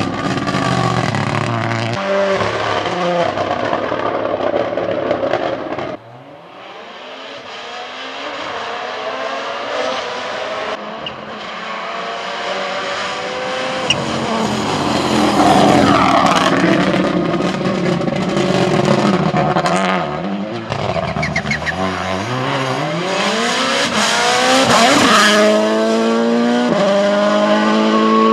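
Toyota GR Yaris Rally1 Hybrid rally car at full throttle, its 1.6-litre turbocharged four-cylinder engine revving up and down through quick gear changes. It cuts off suddenly about six seconds in, then builds again as the car approaches, with loud passes near the middle and again near the end.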